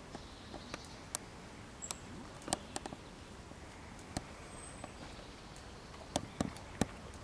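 A brown bear wading in a pond, with irregular small splashes and slaps of water around its head and body over a steady outdoor hiss; the clearest splashes fall about halfway and a cluster near the end.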